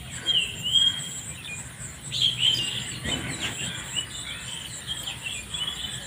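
Birds chirping in many short, high calls, over a steady high insect buzz.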